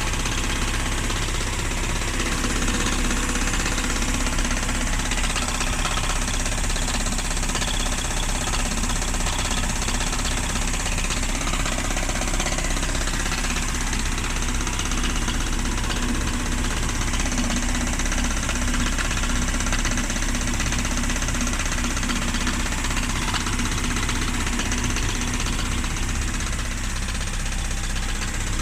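1994 Mazda Miata's 1.8-litre four-cylinder engine running steadily with a knocking sound that the owner suspects may be rod knock.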